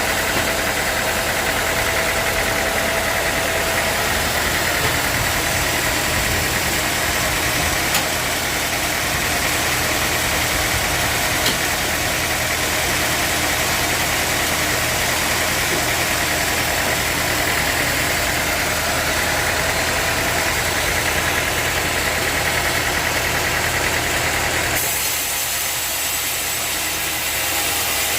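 Sawmill machinery running with a steady mechanical drone and a hiss of noise around the upper mids. About 25 seconds in, the higher part of the sound drops away abruptly and the lower drone carries on.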